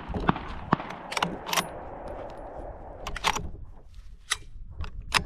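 A string of sharp metallic clicks and clinks, about ten, from a Savage Axis .308 bolt-action rifle being handled between shots.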